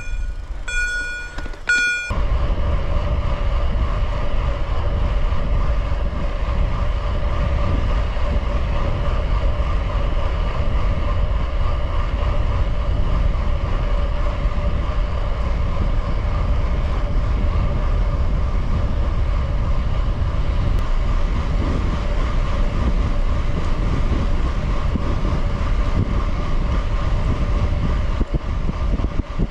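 A few short electronic beeps, then, about two seconds in, the steady noise of riding a gravel bike at speed starts abruptly: wind buffeting the microphone over a low rumble and a steady tyre hum.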